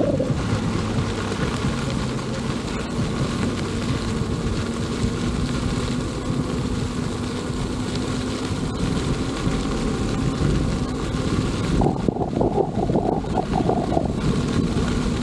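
Wind rushing over the microphone of a rider moving along on an electric unicycle, with a faint steady hum underneath for most of it. The noise turns gustier near the end.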